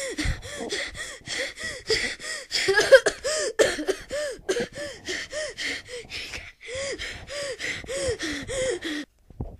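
A person panting hard and fast, a string of short voiced gasps about two to three a second, the out-of-breath breathing of a runner. It stops just before the end.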